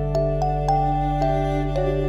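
Background music: held low chords under a slow melody of notes that each start crisply, one every half second or so.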